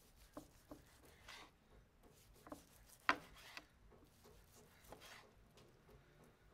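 Knife slicing through a reverse-seared steak's charred crust on a wooden cutting board: soft scraping cuts with light taps of the blade on the board, the sharpest tap about three seconds in.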